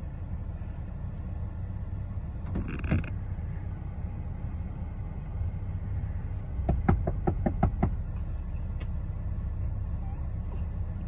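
Car engine idling with a steady low hum inside the cabin. A brief noise about three seconds in, then around seven seconds a quick run of about eight sharp knocks on the locked car from outside, in just over a second.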